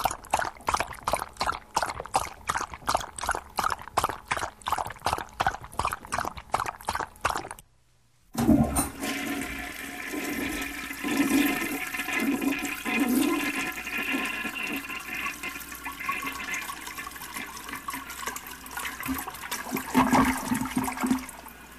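A dog lapping up liquid with quick, regular laps, about four a second. After a short pause, a toilet flushes about eight seconds in, and the water keeps rushing to the end.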